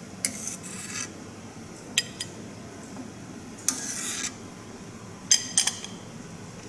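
A fine-mesh skimmer scraping and clinking against the side of an aluminium pan in several short strokes as scum is skimmed off simmering bonito and mackerel dashi.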